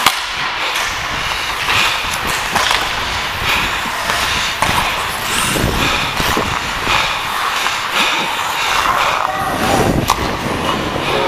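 Ice hockey play heard up close from a skater's helmet-mounted camera: skate blades scraping and carving the ice, with many short sharp knocks and clacks from sticks and puck.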